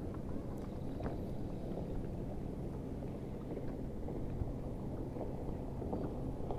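Steady low wind and water noise from a boat on open water, with a faint click about a second in.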